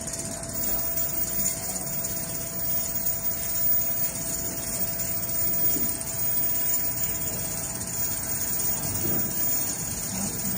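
Large-format CNC sewing machine running steadily, a constant mechanical hum with a thin steady whine.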